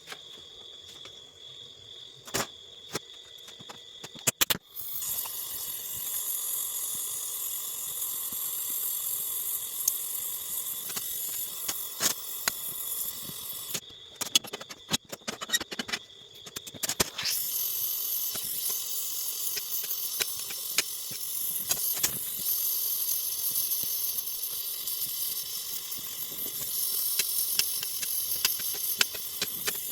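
LPG gas torch flame hissing steadily during aluminium gas welding. A thin high whistle with a few sharp clicks comes first. The hiss starts about five seconds in, breaks off for a few seconds in the middle amid clicks and taps, then resumes.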